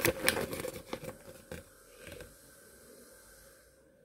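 Crinkling and rustling of card-game packaging and a folded game mat being handled: a flurry of sharp crackles in the first second and a half, a few more after, then dying away to near quiet.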